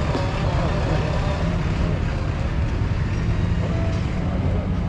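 JCB 3DX backhoe loader's diesel engine running steadily with a low rumble.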